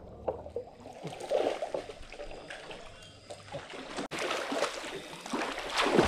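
Swimming-pool water splashing and sloshing in irregular bursts, loudest near the end.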